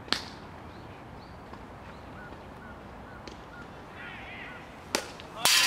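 Baseball players calling out across the field, with scattered shouts and a few sharp clicks. A loud smack near the end is followed by louder shouting.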